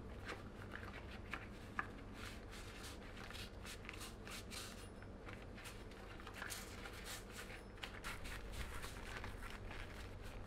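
A microfibre cloth wiping a wet axe head in rubber-gloved hands: faint, irregular scratchy rubbing and rustling strokes.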